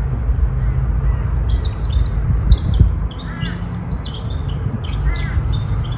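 A steady low rumble, with birds chirping and squawking over it from about a second and a half in.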